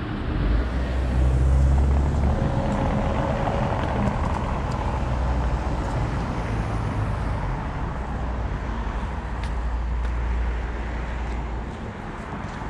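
A motor vehicle's engine running close by in street traffic: a low rumble, loudest a second or two in, that eases off near the end.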